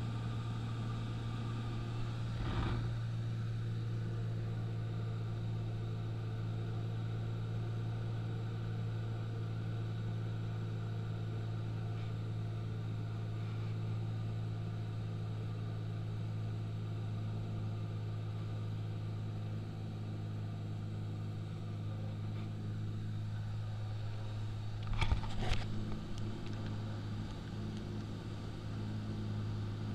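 Small single-engine propeller plane's piston engine and propeller droning steadily in flight, the note dipping slightly around twenty seconds in. A brief clatter about two and a half seconds in and a short burst of crackles near twenty-five seconds stand out above the drone.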